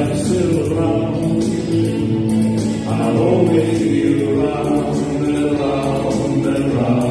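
A man singing a slow song into a microphone over music, holding long notes.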